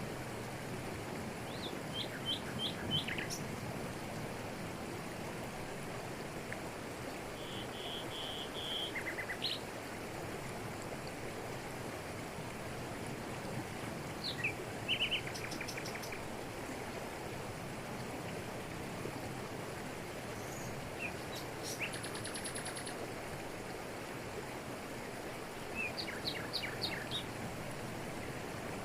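Waterfall rushing steadily over rocks in tropical forest, with birds breaking in every few seconds with short series of chirps and whistled notes.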